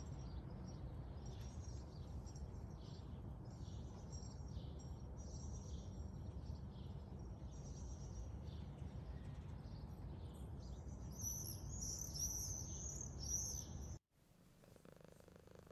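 Birds chirping and calling over a steady low outdoor rumble, with a louder flurry of high-pitched calls near the end. Then, after a sudden cut, a Selkirk Rex cat purring faintly while it is stroked.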